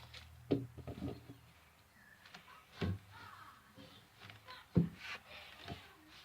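A few light knocks and handling taps over a quiet room, with a sharper knock nearly five seconds in.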